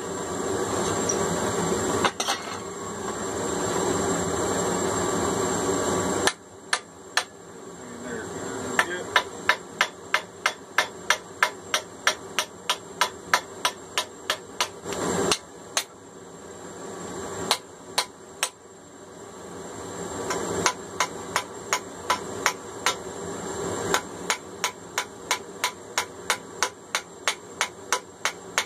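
Hand hammer striking steel clamped in a bench vise, sharp ringing blows about two a second in runs broken by short pauses, as a pin is peened over to fix the hammer head onto the door knocker's forged handle. A steady rushing noise fills the first six seconds before the blows begin.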